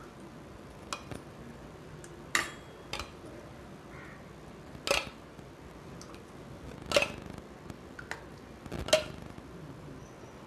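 Steel ladle clinking against a stainless steel bowl and small steel tumblers while thick milk is ladled out: about seven sharp separate knocks with a short ring, the loudest near the end.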